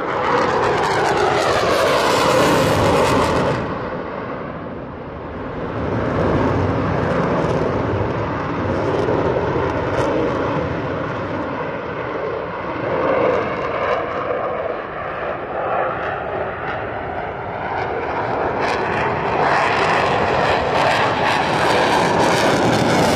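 Jet noise of a Lockheed Martin F-22 Raptor's twin Pratt & Whitney F119 turbofans as it flies past. It is loud at the start, with a pitch that sweeps down as the jet passes, eases a few seconds in, then builds again to its loudest near the end.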